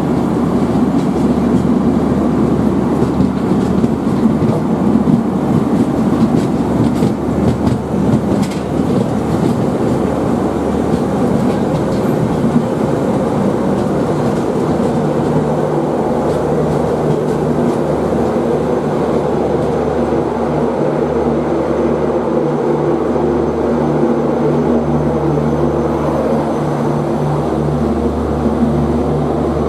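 Express train coaches rolling along the track, wheels clacking over rail joints, with a steady low hum coming to the fore in the second half.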